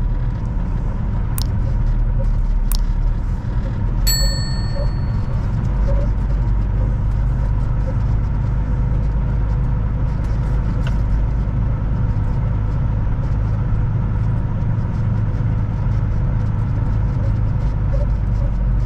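Semi truck's diesel engine running steadily at low speed, heard from inside the cab as a constant low rumble. A couple of sharp clicks come early, and a short metallic ding rings out about four seconds in.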